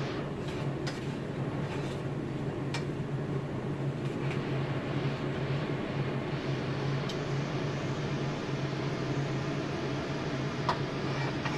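A steady low mechanical hum, fan-like, fills the kitchen. Over it come a few faint scrapes and taps of a spatula in a nonstick wok as oil is spread over the heating pan.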